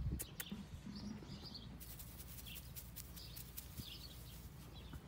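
Faint birds chirping, short high calls coming every half second to a second, with a few sharp clicks in the first half second.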